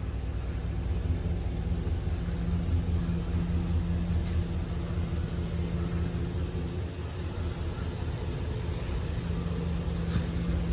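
The ambulance's 6.0 L Vortec V8 gas engine idling: a steady low rumble with a constant hum.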